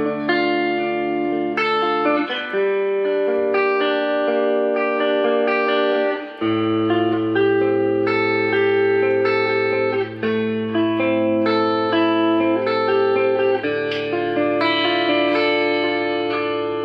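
Fujigen J-Standard Mustang electric guitar played clean through an amplifier, its upper pickup switched to use both coils: ringing chords and picked notes with a bright, sparkly tone.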